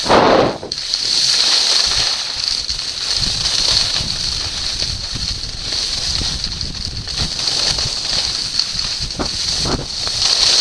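Skis sliding and scraping over packed snow on a downhill run, a steady high hiss, with wind rumbling on the goggle camera's microphone. A louder rush of air comes at the start.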